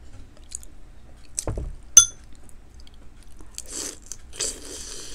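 Close-miked eating of king crab leg meat dipped in chili sauce: wet chewing and mouth sounds in the second half. A single sharp, ringing clink about two seconds in is the loudest sound.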